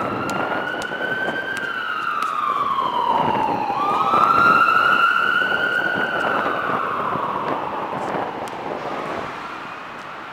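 Emergency vehicle siren sounding a slow wail: it rises, falls low about four seconds in, swoops back up and slowly falls again. It grows louder and then fades away near the end, over steady traffic noise.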